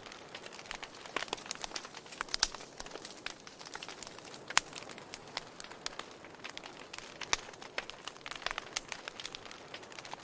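Wood fire in a fireplace crackling: irregular sharp pops and snaps over a soft hiss, the loudest snap about four and a half seconds in.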